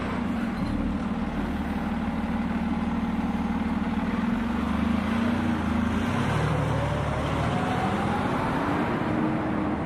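Fire engine's diesel engine running steadily. About six seconds in its pitch begins to climb as the engine revs up.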